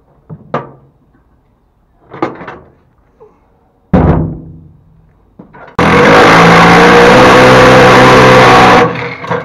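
Cordless Milwaukee impact driver hammering steadily for about three seconds on the bolts of a metal battery box mount, then stopping abruptly. Before it come a few knocks and one loud clunk about four seconds in as the battery is lifted out of the box and set down.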